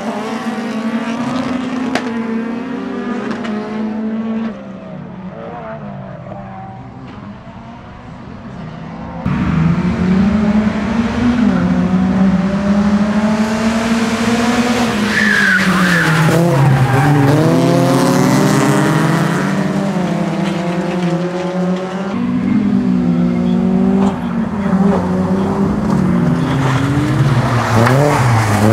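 Race car engines revving hard, their pitch climbing and dropping through gear changes as the cars race past, with tyre squeal as they slide. About four seconds in the engines drop away to a lower level, coming back louder about nine seconds in as rear-wheel-drive BMW 3 Series (E36) race cars battle side by side.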